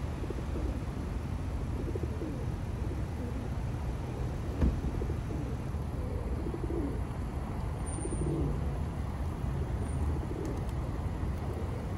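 A flock of feral pigeons cooing, low and repeated, over a steady low rumble of city traffic. A single sharp knock sounds about halfway through.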